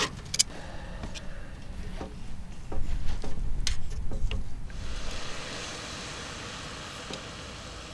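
A few sharp clicks and knocks over a low rumble, then from about five seconds in a steady hiss, likely meat sizzling on the iron griddle.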